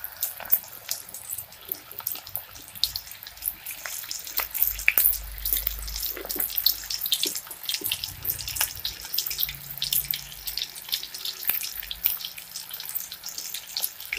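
Mushroom pakoda batter deep-frying in hot oil in a steel kadai: a dense, continuous sizzle of many small crackles as the oil bubbles around the freshly dropped pieces.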